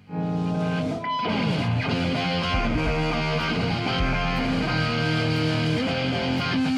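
A live rock band's distorted electric guitars and bass guitar come in suddenly, playing loud sustained chords. There is a short break about a second in, then the chords carry on.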